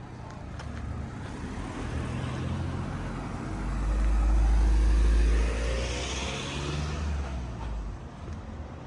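A car driving past close by, its engine and tyre noise growing to a loud low rumble about four to five seconds in, then falling in pitch and fading away.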